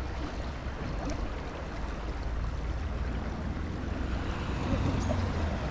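Steady rush of river water with a low wind rumble on the microphone.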